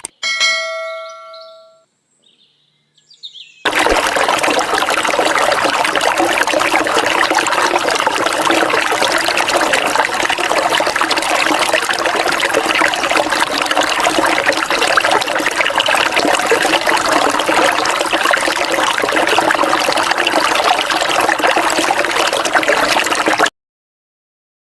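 Steady rush of flowing river water, starting abruptly about four seconds in and cutting off abruptly near the end. A brief ringing tone fades out in the first two seconds.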